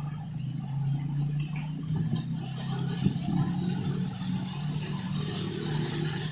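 Heavy rain and gusting wind, the hiss swelling toward the end, over a steady low machine hum.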